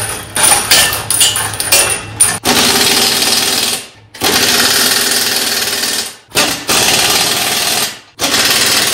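Metal clattering and knocking from the flywheel's spring-and-bearing linkage for the first two seconds or so. Then an impact wrench is run at the flywheel's axle hub in four bursts of one to two seconds each, with short pauses between.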